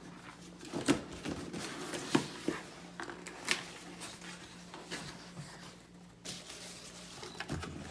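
Packaging being handled while unboxing a wall charger: scattered light clicks, taps and rustles of the box and its contents, over a faint steady hum.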